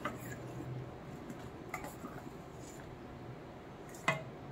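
Steel ladle stirring thick lentil-and-brinjal gotsu in a stainless steel pot, with a few light clinks of the ladle against the pot, the sharpest near the end.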